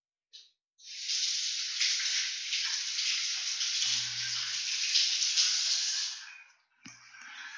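A loud, steady hiss lasting about five and a half seconds, then after a brief break a softer hiss near the end.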